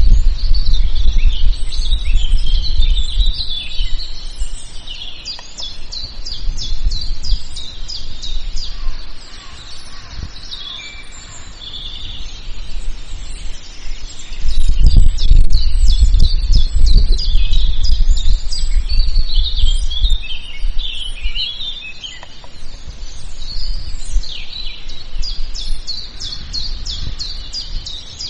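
Several birds singing and chirping together in a forest chorus, with rapid trills and short calls throughout, over a low rumble of wind that rises and falls, strongest near the start and again around the middle.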